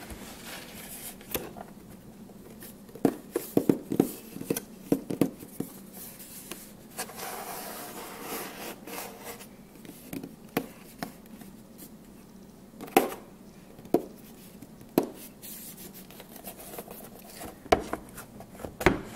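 Fingertips and nails tapping and scratching on a wooden art-kit case: quick clusters of light taps at first, a stretch of rubbing and scratching in the middle, then a few sharper single taps spaced about a second apart near the end.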